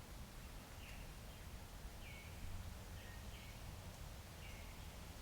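Faint bird chirps, short falling notes repeated about once a second, over a low steady outdoor background rumble.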